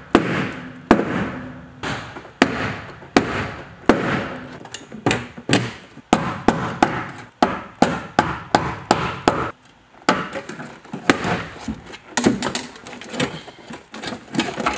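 A hammer repeatedly striking a rounded-off seat bolt and the floor sheet metal around it in a car's cabin, about two blows a second with a short ringing after each, pausing briefly about two-thirds of the way through before the blows resume.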